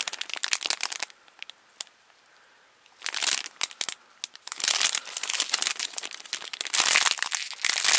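Packaging crinkling and rustling as it is handled, in bouts: a burst at first, a short lull with a single click, then near-continuous crinkling through the second half.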